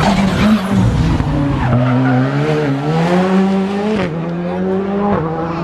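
Rally car accelerating hard past on a special stage, with a loud rush of tyre and road noise over the first second or so. The engine then climbs in pitch and drops sharply at a gear change about four seconds in, and again near the end.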